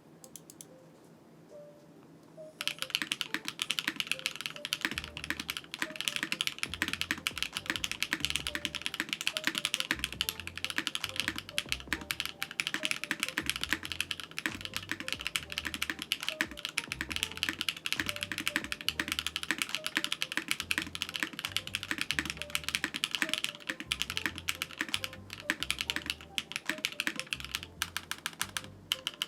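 Fast, continuous typing on a Bauer Lite mechanical keyboard with HMX Violet linear switches and DCX keycaps. The rapid keystrokes begin about two and a half seconds in.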